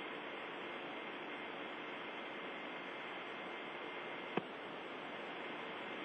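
Steady radio static hiss with a faint hum from the Soyuz space-to-ground communications downlink, cut off above the treble like a narrow radio channel, with a single short click about four seconds in.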